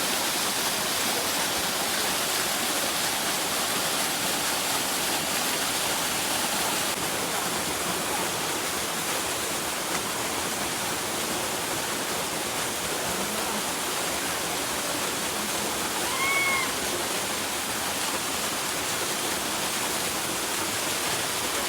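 Small waterfall splashing down in a steady, even rush. A single short call rises and falls once about three-quarters through.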